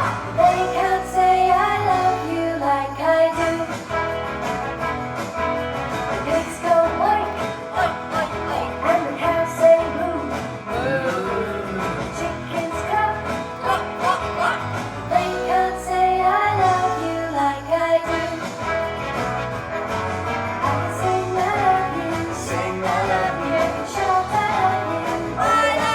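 A song: a voice singing a melody over instrumental backing with a steady beat.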